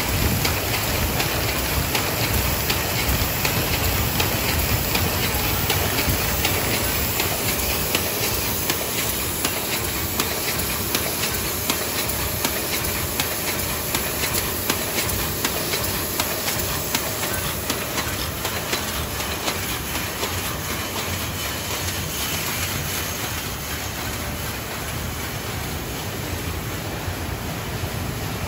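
Oyang B460 square-bottom paper bag machine running at 80 bags a minute: a steady mechanical clatter with a rapid, even train of clicks over a hiss. It grows a little quieter near the end.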